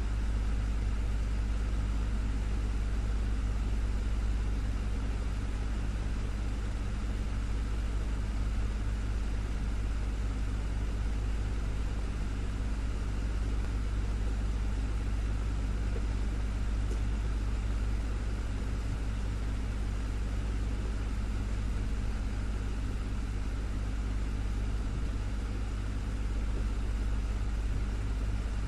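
Desktop fan running steadily: a deep motor hum with the soft rush of moving air.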